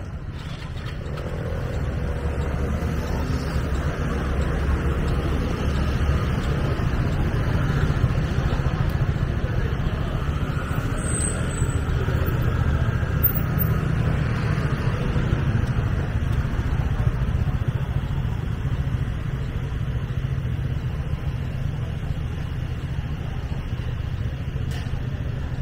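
Steady low rumble of street traffic, swelling over the first few seconds and then holding.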